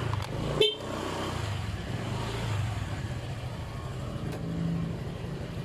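Honda Click 125 scooter's single-cylinder engine running at low speed, with a sharp knock about half a second in.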